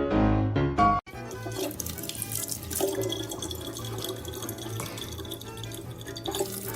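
Piano music for about a second, then an abrupt cut to a steady rushing noise like running water.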